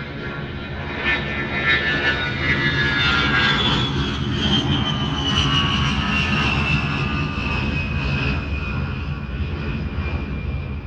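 An airplane flying past: its engine noise swells to a peak and then fades away, with a high whine that slowly falls in pitch as it goes by.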